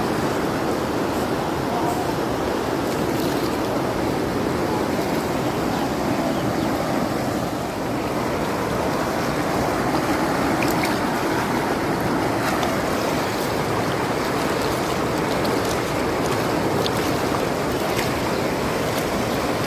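Fast floodwater of a swollen river rushing steadily, an even, unbroken wash of water noise.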